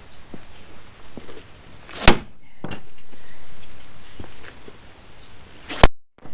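Sledgehammer striking the wooden support legs under a chicken coop: two loud, sharp blows about four seconds apart, with light scuffing of boots between them. The blows knock the legs loose from the coop.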